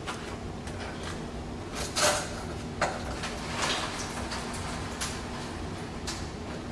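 A plastic intercooler coolant reservoir is being worked loose and lifted out of an engine bay. Its hoses and mountings give a run of scrapes and knocks, the loudest about two seconds in, over a faint steady hum.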